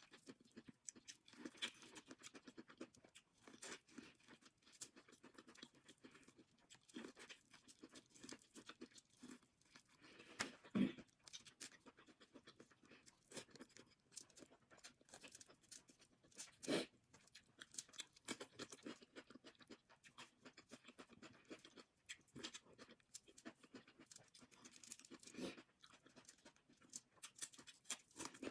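Faint close-up eating sounds of a seafood boil: irregular wet chewing, crunching and clicking of shells, with a couple of louder knocks about eleven and seventeen seconds in.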